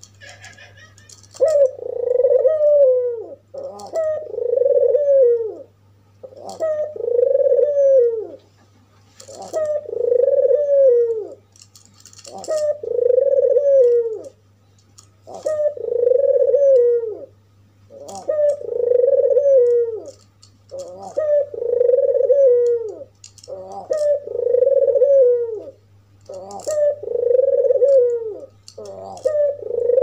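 An albino white ringneck (Barbary) dove, the Indonesian 'puter', cooing in a steady series: about a dozen coos, each about two seconds long, one every two to three seconds. A steady low hum runs underneath.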